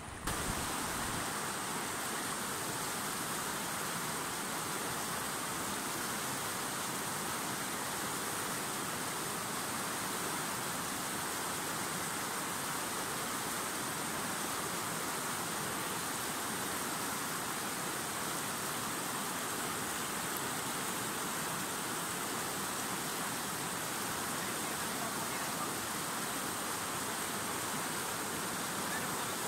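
Fast mountain river running over rocks in a riffle: a steady, unbroken rush of water.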